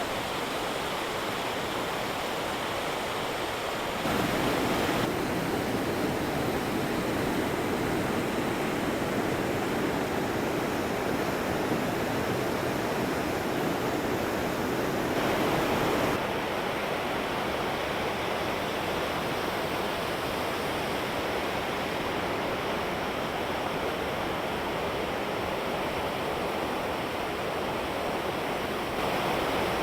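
Waterfall running full, a steady rush of falling water that steps up a little about four seconds in and drops back about sixteen seconds in.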